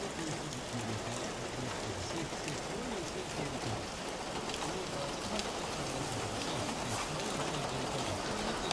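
A steady hiss of outdoor background noise, with faint low voices murmuring under it.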